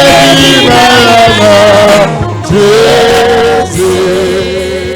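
Gospel praise music: a man singing a held, sliding melody over band accompaniment, growing quieter near the end.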